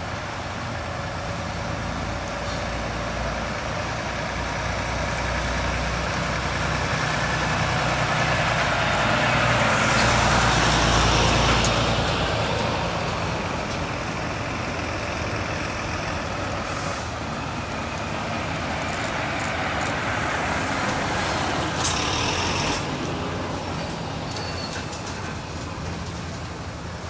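Heavy diesel lorries running past at low speed. The engine noise grows louder to a peak about ten seconds in as one passes close, then fades. There is a short hiss a little past twenty seconds.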